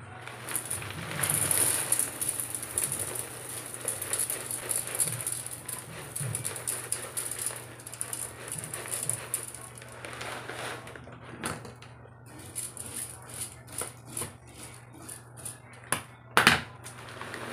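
Dry cat-food kibble poured from a plastic bag into an empty metal milk tin, the pellets rattling and clicking against the tin, with the plastic bag rustling. There is one louder sharp noise near the end.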